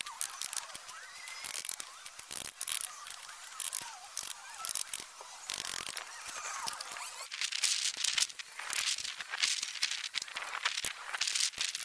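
Irregular scraping and clicking from hand work in soil and with concrete pavers.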